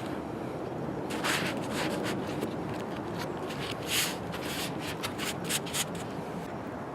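Irregular rubbing strokes as adhesive is spread onto a canvas window shade.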